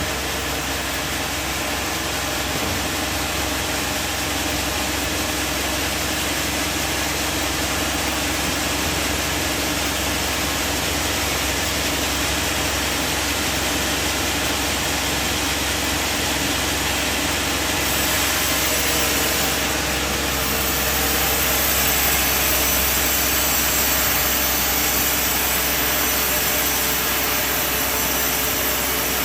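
Sawmill machinery running steadily, a constant mechanical drone that shifts slightly in tone and gets a little louder about eighteen seconds in.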